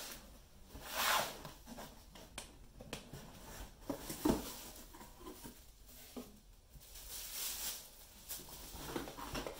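A cardboard shoebox is slid and handled, with a scrape about a second in and a couple of sharp knocks around four seconds as the lid is worked open. Tissue paper rustles near the end.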